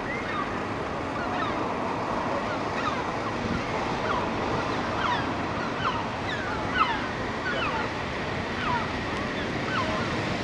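Herring gulls calling: many short, falling calls, one or two a second, over a steady rush of wind and surf.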